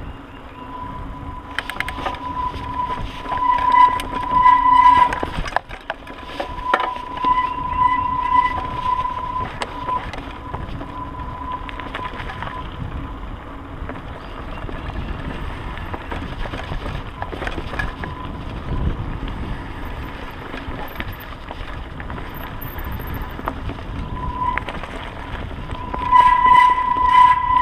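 Mountain bike ridden over a dirt and leaf-covered singletrack: wind rushing over the microphone and tyres rolling on dirt, with scattered knocks and rattles from the bike. A steady high whine comes and goes, loudest about four seconds in and again near the end.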